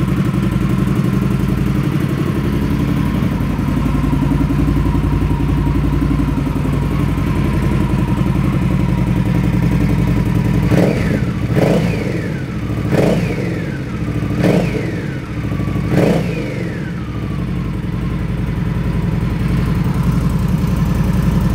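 2016 Indian Scout's 1133cc V-twin, freshly started, idling steadily on its standard exhaust. About halfway through, the throttle is blipped five times, and each rev drops quickly back to idle.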